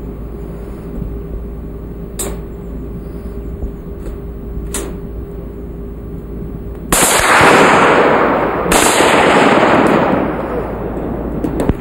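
Two loud bursts of gunfire over a lake, the second starting about two seconds after the first and fading out in echo over about two seconds. Before them only a steady low hum with a couple of faint clicks.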